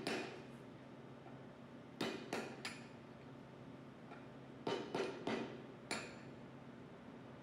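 Sharp metal-on-metal knocks while the seals are worked out of the pump housing with a seal extractor: three quick strikes about two seconds in, then four more around five to six seconds.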